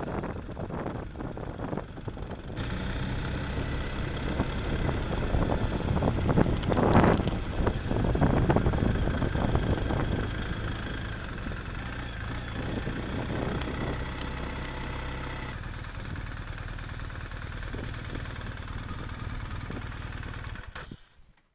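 BMW GS twin-cylinder adventure motorcycle engine running as the bike rides slowly, loudest about a third of the way in. It then settles into a steady idle in the last few seconds and stops abruptly near the end.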